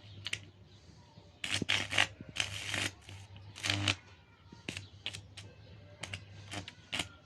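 Homemade welder built from lamp ballasts striking an arc: irregular bursts of crackling and sputtering, loudest about a second and a half to three seconds in and again near four seconds, over a steady low mains hum.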